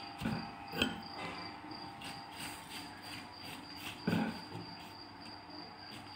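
A high chirp pulsing evenly in the background, with a few dull knocks from handling the metal baking pan and phyllo sheets; the loudest knock comes about four seconds in.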